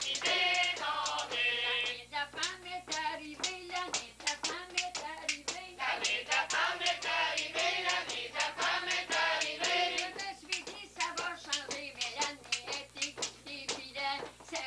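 Singing, with hands clapping along in a steady beat.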